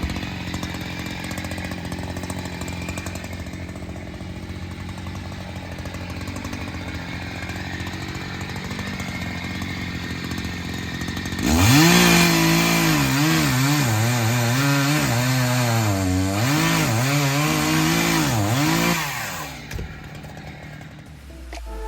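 Gas chainsaw engine running at a low, steady speed, then revving loud about halfway through. Its pitch dips and rises repeatedly as it bogs and recovers under load while cutting wood for about seven seconds, then it drops back and stops.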